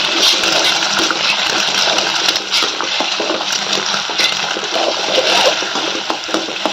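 Beaten egg frying in hot oil in a pan, sizzling steadily, with a spatula scraping and clicking against the pan as the egg is pushed and folded.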